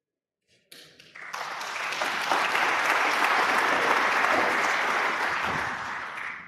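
Audience applauding, building up about a second in and dying away near the end.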